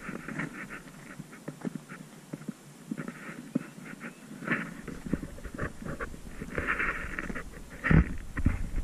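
A dog panting in quick breaths, with scattered light knocks and a couple of louder thumps near the end.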